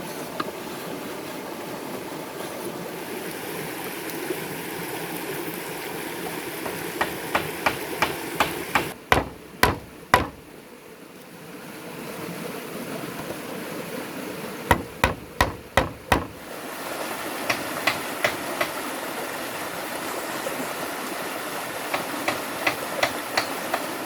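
Runs of sharp knocks, several a second, as wood is struck with a tool such as a hammer, machete or axe. The loudest clusters come about nine seconds in and again about fifteen seconds in, over a steady rushing background like running water.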